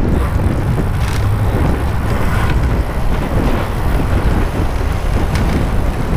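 Steady low rumble of wind on the microphone and tyre noise from a moving bicycle, with city road traffic around it and a few faint clicks.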